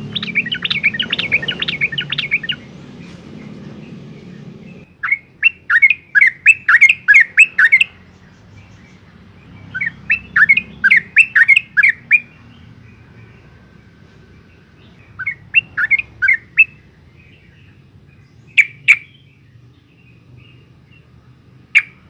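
Yellow-vented bulbul (trucukan) singing. It gives four bursts of rapid, repeated chirping notes a few seconds apart, then a few single notes near the end.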